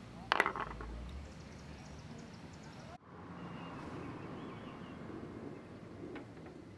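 A short cluster of light, sharp taps about half a second in, then faint steady outdoor background noise.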